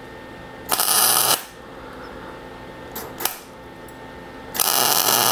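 Solid-wire MIG welder with argon-CO2 shielding gas striking an arc in two short crackling bursts, one about a second in and one near the end, welding a nut onto a broken muffler screw so it can be turned out. A faint click falls between the two bursts.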